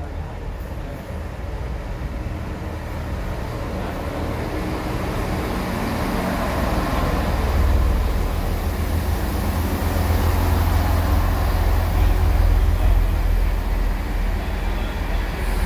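Train running, with a deep rumble under a steady rushing noise that grows louder over the first half and then holds.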